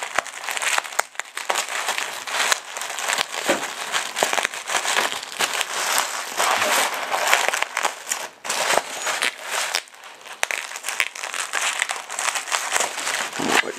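Plastic bubble wrap crinkling and crackling as it is squeezed, cut open with scissors and pulled apart by hand, in an irregular run of many small crackles.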